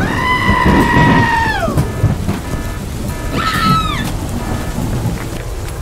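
Thunderstorm sound with rumbling and rain. A loud, held wail falls away after almost two seconds, and a second, shorter falling wail comes about three and a half seconds in.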